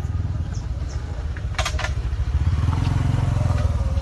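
A low engine running steadily, growing louder about halfway through. A short double click comes about one and a half seconds in, and small birds chirp a few times in the first second.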